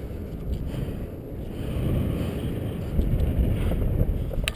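Wind buffeting the helmet camera's microphone during a parachute descent: a low rumbling rush, louder from about two seconds in. A short sharp click near the end.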